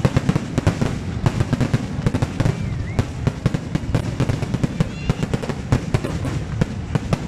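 Fireworks display: a continuous, rapid barrage of bangs and crackles from aerial shells bursting, many per second with no let-up.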